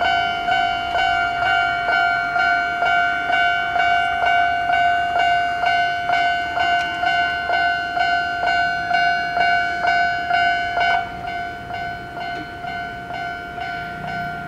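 Railway level-crossing alarm ringing a repeating pitched ding about twice a second, turning quieter about eleven seconds in.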